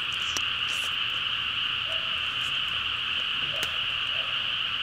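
Dense night chorus of calling frogs and insects: a steady, high-pitched trill that goes on without a break, with a few faint clicks over it.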